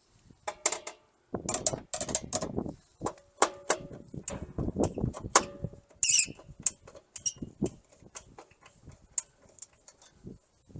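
Hand tools and stiff electrical wire being worked inside a metal breaker sub-panel: an uneven string of clicks, scrapes and light metallic clinks.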